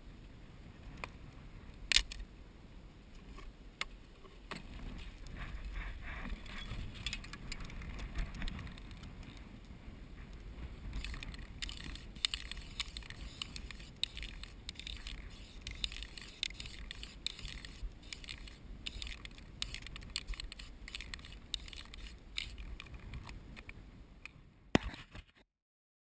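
Light scraping, tapping and clicking as a hand works against a wooden nest box and a dead tree trunk, over a low wind rumble on the microphone. The clicks come thickest in the second half, then everything cuts off to silence near the end.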